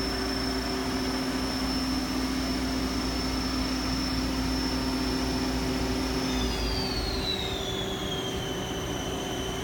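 Hardinge Quest 8/51 CNC lathe running with a steady high whine over a lower hum. About six seconds in, the whine glides down in pitch and settles lower while part of the hum cuts out, as the machine's speed drops.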